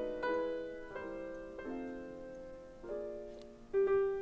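Soft background piano music: chords struck about once a second, each left to ring and fade.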